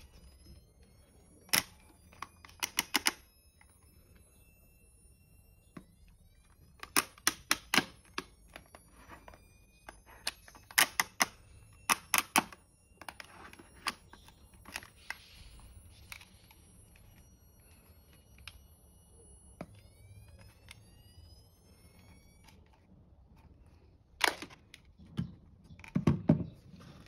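Vintage Metz 45 CT-1 handle-mount flash being tested and handled: clusters of sharp clicks, and three times a thin, high-pitched charging whine rising in pitch as the flash capacitor recharges. Heavier knocks near the end as parts are handled and set down.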